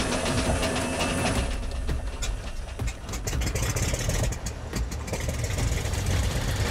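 Cessna 206 floatplane's six-cylinder piston engine running at idle just after start-up, propeller turning, with the low rumble growing heavier about three and a half seconds in.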